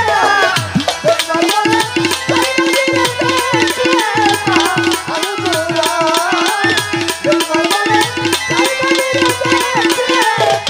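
Instrumental interlude of Bengali folk pala gaan music. Hand drums play low strokes that slide down in pitch over a fast, steady high beat, with a wavering melody line above.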